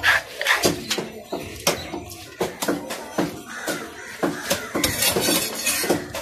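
Irregular knocks and clatter, several a second, of heavy knives chopping fish on wooden tree-stump chopping blocks.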